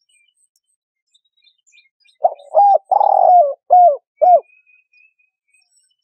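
A dove cooing: one phrase of five low coos about two seconds in, the middle coo the longest. Small birds chirp faintly in the background.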